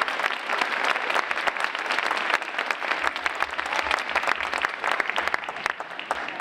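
An audience of schoolchildren clapping, dense and steady, thinning out near the end.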